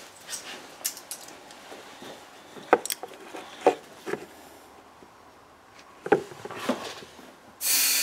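A plastic dishwasher spray arm knocking and rubbing on a wooden workbench as it is handled, a scattered series of clicks and knocks. Near the end a compressed-air blow gun starts with a sudden loud, steady hiss, blowing paper and gunk out of the arm's clogged spray ports.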